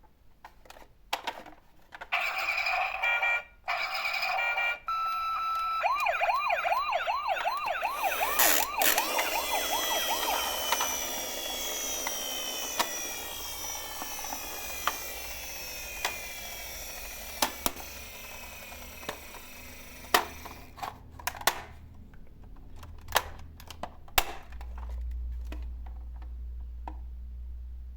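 Toy emergency vehicles' electronic sirens: steady tones at first, then a fast up-and-down wail, then several sirens overlapping with their pitch slowly falling as they fade. Sharp clicks and knocks of the plastic toys are scattered through it, thickest after the sirens die away.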